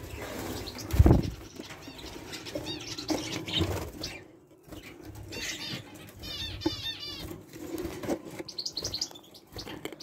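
Small aviary birds fluttering their wings, with a dull knock about a second in. From about five seconds in, a bird chirps in quick runs of short, arching high notes.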